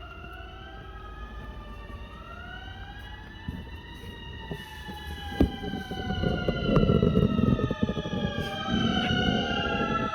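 Sirens wailing, several rising and falling tones overlapping one another. About six seconds in, a louder low rumbling with clatter joins them.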